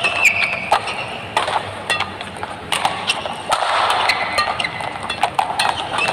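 Rackets striking a feather shuttlecock back and forth in a fast doubles rally: sharp hits in quick succession, with short squeaks of shoes on the court.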